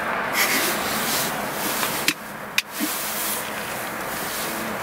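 Steady rushing noise inside a car cabin, broken by two sharp clicks about half a second apart a little after two seconds in.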